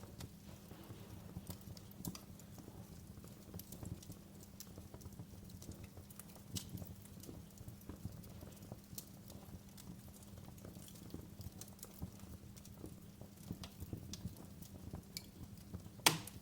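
Wood fire crackling in a fireplace: scattered sharp pops and snaps over a low steady rumble, with one loud pop near the end.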